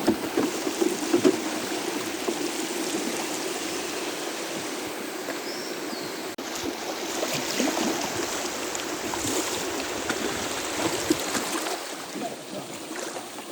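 Flowing river water, a steady rushing.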